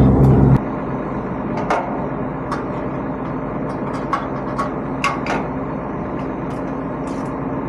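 Light, irregular metal clinks of a hand tool on a truck's side underrun guard bracket as the loose guard, whose nut fell off, is refastened. A truck's diesel engine idles steadily underneath, and a louder sound cuts off just after the start.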